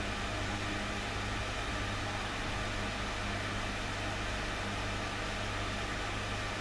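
Steady hum and hiss of running aquarium equipment, with a constant low mains-like drone and an even hiss, unchanging throughout.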